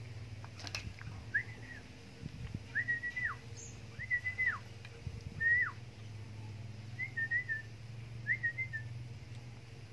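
A series of six short whistled calls, about one every second and a half. The first four each rise, hold and then drop away in pitch; the last two are wavering and broken.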